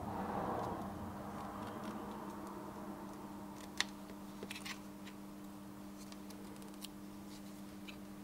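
Quiet bench handling of thin nickel strip and tin snips: a soft rustle at first, then a few light, sharp metallic clicks around four seconds in, over a steady low background hum.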